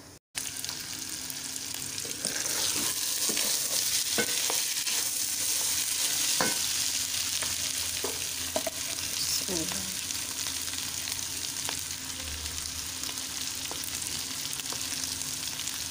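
Minced meat with green peppers and potatoes frying in a non-stick pot, a steady sizzle with a wooden spoon stirring it and clicking against the pot now and then.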